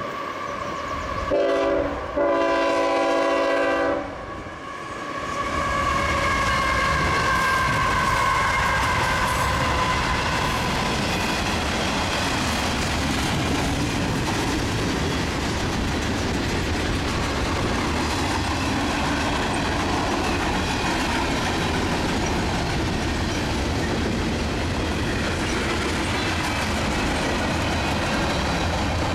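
CSX freight locomotive sounding its air horn in a short blast and then a longer one, the closing short-long of the grade-crossing signal. The train then rolls by steadily, its tank cars, boxcars and gondolas clacking over the rail joints.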